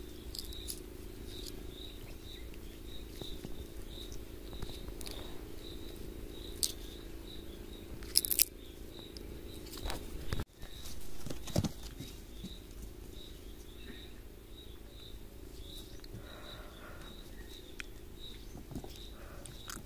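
A high, even chirp repeating quickly and steadily throughout, typical of an insect calling. Baby vervet monkeys handle and clamber over the camera, making scattered rustles, taps and knocks, the loudest a few seconds past the middle.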